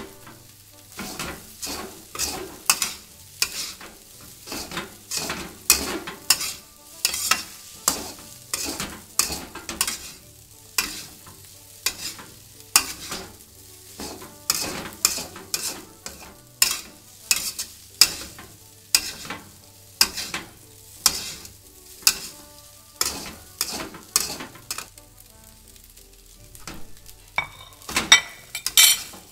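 Metal wok spatula scraping and tossing fried rice around a metal wok, about one to two strokes a second, over a light sizzle of frying. A quicker flurry of strokes comes near the end.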